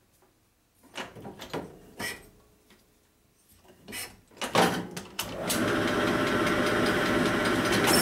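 Knocks and clunks as a cast motorcycle cylinder is handled against a honing machine's mandrel, then about five seconds in the hone starts and runs steadily, its stones grinding inside the cylinder bore to put a fresh surface on it.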